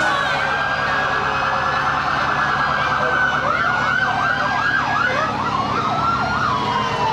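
Emergency-vehicle sirens sounding: a fast warble at first, then, about three seconds in, up-and-down sweeps about twice a second, turning near the end into one long falling wail.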